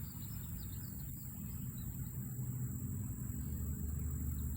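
Outdoor ambience: a steady high insect buzz with a few faint chirps, over a low engine-like rumble that grows louder about halfway through, as of a vehicle approaching.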